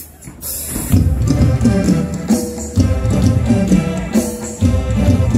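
Mor lam band music: a cymbal splash about half a second in, then a heavy bass and drum beat with a melody over it.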